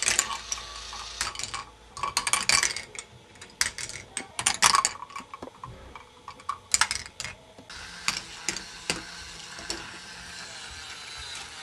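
K'nex ball machine running: balls rolling and clattering along the plastic track, with bursts of sharp clicks and knocks. From about eight seconds in it settles into a steadier rattle with occasional ticks.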